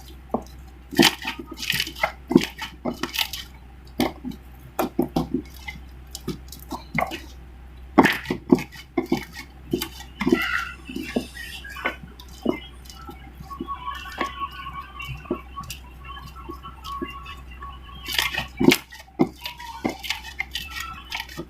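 Slime being squeezed and stretched by hand, making many quick, irregular wet clicks, pops and squishes.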